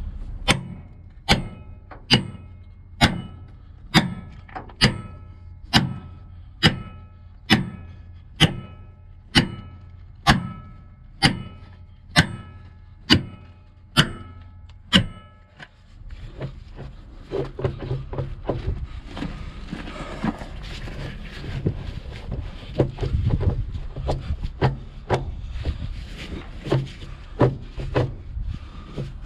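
Hammer blows on steel, about seventeen even strikes a little under one a second, each ringing out metallically, driving at a seized, rusted steering joint to break it loose. About halfway through the hammering stops and gives way to lighter, irregular knocks and metal clatter.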